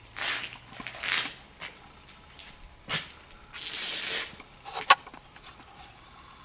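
Footsteps crunching and scuffing on dry ground, four or five irregular steps, with a sharp click near the end.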